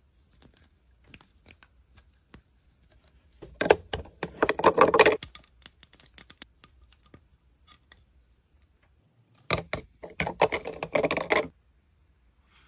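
Toy packaging being handled and opened: scattered small clicks and taps, with two louder bursts of rapid crackling and rustling, one about four seconds in and one near ten seconds.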